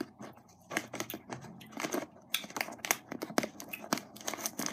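Thin clear plastic bag on a tub of cotton candy crinkling as a hand works in it: a dense, irregular run of sharp crackles that starts about a second in.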